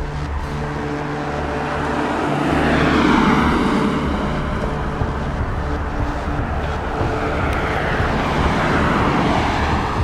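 Two road vehicles passing one after the other, each swelling up and fading away, the first loudest about three seconds in and the second near the end.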